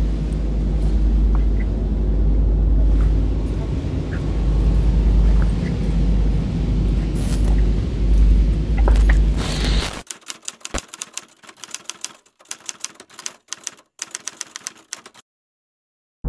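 Heavy low rumble of wind and handling noise on the camera microphone while walking through leafy undergrowth, with faint rustles. About ten seconds in this cuts to a rapid, irregular run of typewriter key clicks, which stops about a second before the end.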